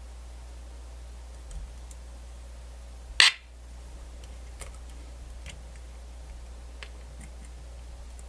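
Small tools and parts being handled on a workbench: one loud, sharp click about three seconds in, then a few faint ticks, over a steady low hum.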